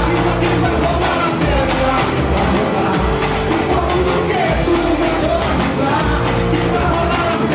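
Brazilian samba percussion band playing live: surdo bass drums and snare drums drive a steady, fast beat under lead vocals sung into microphones.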